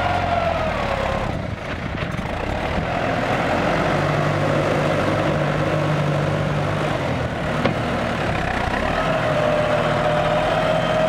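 CLAAS Talos 240 tractor's diesel engine running steadily under load as it pushes soil with a front blade and drags a disc harrow. The engine note is strongest midway. A high whine wavers over it, fading out about a second in and returning near the end.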